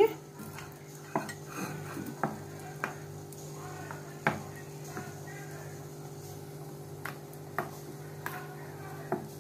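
A metal spoon stirring a thick paste in a small stainless steel bowl, with irregular clinks of the spoon against the bowl's side every half second to a second.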